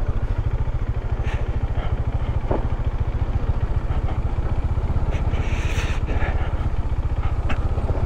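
Motorcycle engine running at low speed over a rough gravel road, its exhaust a steady, even low pulse, with a few short knocks along the way.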